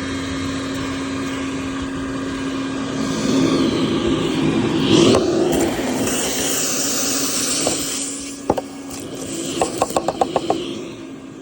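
Vacuum running steadily with a rushing of air, used for cleaning out gutters. It is followed by a sharp knock and then a quick run of clicks near the end.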